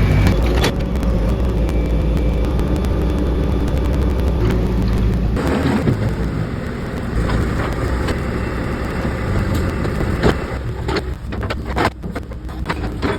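Excavator engine running steadily under hydraulic work, with repeated sharp knocks and clunks from the track and undercarriage being forced back onto its wheels. The engine's low note shifts about five seconds in.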